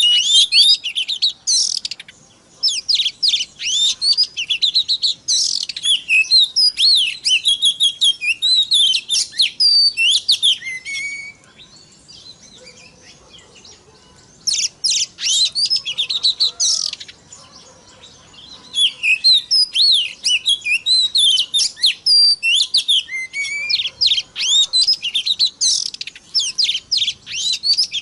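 Oriental magpie-robin (kacer) singing long, fast runs of varied whistles and chattering notes, broken by two pauses of a few seconds.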